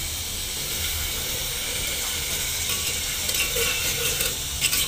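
Onion-tomato masala sizzling steadily in an aluminium pressure cooker, with a steel ladle stirring it and clicking against the pot a few times near the end.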